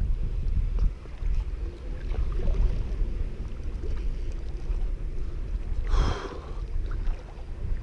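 Wind buffeting the camera microphone in a steady low rumble, with water lapping at the shore. About six seconds in comes a short, high-pitched cry.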